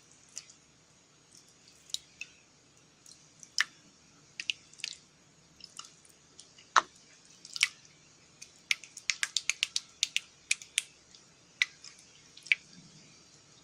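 Slime being squished and worked by hand, giving off sharp sticky pops and clicks: scattered at first, then a quick run of about a dozen pops past the middle.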